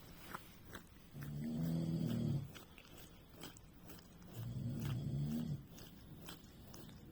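Slow, regular snoring: two long low snores about three seconds apart. Between them come faint small clicks, fitting a Sphynx cat licking itself as it grooms.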